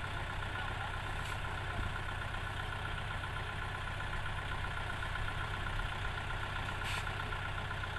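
Diesel engine of a farm machine idling steadily.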